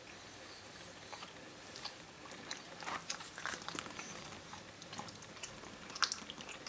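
Mother cat licking and chewing close to the microphone just after giving birth: soft, irregular wet smacks and clicks, with one sharper click about six seconds in.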